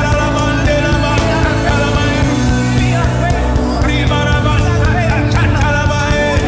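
Worship band playing with voices singing over steady bass and drums.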